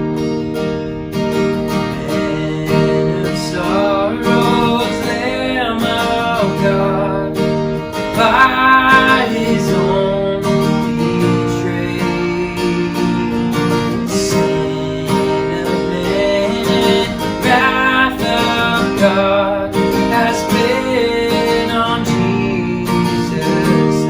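Worship-band music led by a strummed acoustic guitar playing sustained chords, with a wavering melody line over it twice: the instrumental opening of a worship song.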